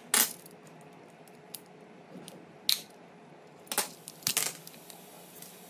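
Plastic shell of a handheld mini neck fan being pried and pulled apart: a series of sharp clicks and snaps, the loudest just after the start, another near the middle and a cluster about four seconds in.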